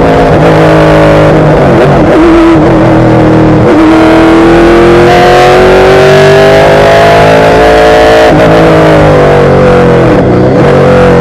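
Stock race car engine under hard acceleration, heard loud from inside the cockpit. Its pitch climbs steadily through the middle, then drops off a couple of seconds before the end and keeps easing down.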